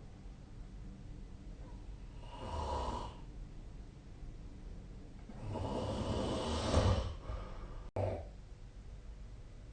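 A sleeping person snoring: a short snore about two and a half seconds in, then a longer, louder one from about five and a half seconds that peaks near seven seconds. The sound cuts out for an instant near eight seconds.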